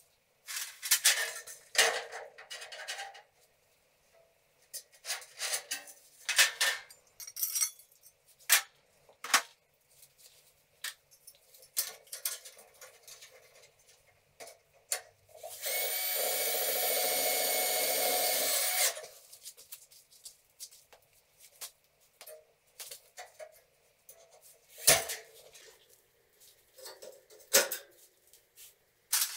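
A power drill runs steadily for about three seconds in the middle, amid scattered sharp clicks and scrapes of galvanized steel drywall profiles being handled and fitted to a stone wall.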